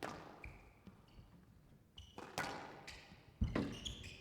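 Squash rally: sharp cracks of the racket striking the ball and the ball hitting the walls, about half a dozen hits with the loudest thud about three and a half seconds in, among short squeaks of court shoes on the wooden floor.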